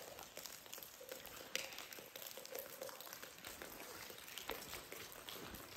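Water dripping from icicles into a still pool: faint, scattered drips over a soft, steady patter.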